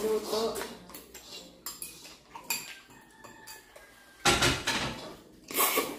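Spoons and forks clicking and scraping against ceramic bowls as several people eat noodles, in scattered light clinks. Two short, louder rushes of noise come about four seconds in and again near the end.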